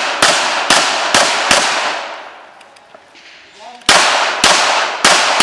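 Pistol shots fired in rapid strings: four shots about half a second apart, a pause of about two seconds, then four more, each sharp crack trailing off in a long echo.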